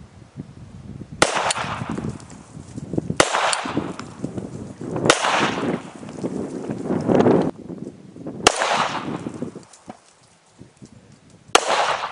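A DMLS 3D-printed stainless steel 1911 pistol firing .45 ACP: five sharp shots, two to three and a half seconds apart, each report trailing off over about a second.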